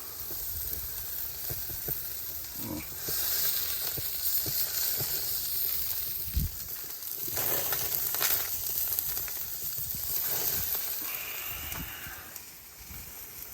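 Ribeye steak sizzling on the grate of a small hibachi charcoal grill, a steady hiss that swells a few seconds in and again about halfway through.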